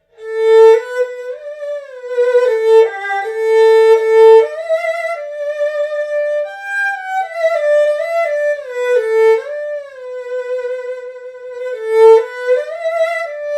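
Solo erhu bowing a slow, lyrical melody high in its range, in second position, with slides between notes and vibrato on the held notes.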